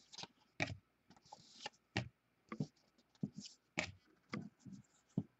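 Trading cards and a pack wrapper being handled at a table: irregular light clicks and taps as cards are flicked and shuffled, with a brief crinkling rustle about a second and a half in.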